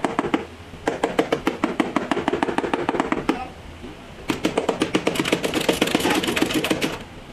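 Rapid light hammer taps on the steel lower center pillar of a GMC Tahoe, about seven a second, in three runs with short breaks, while a chain hoist holds the pillar under pull to straighten it.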